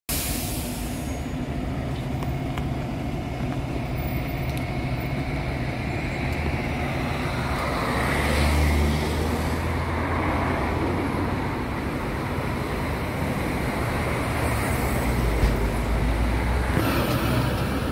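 Road traffic on a busy highway: a steady low engine hum with vehicles passing, the louder ones going by about eight seconds in and again around fifteen seconds in.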